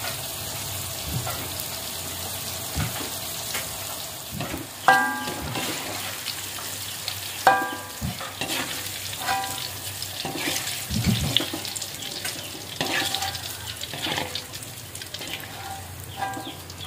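Chillies and shallots frying in oil in a metal wok with a steady sizzle. A metal spatula scrapes and clanks against the wok several times, from about five seconds in, with short ringing clinks.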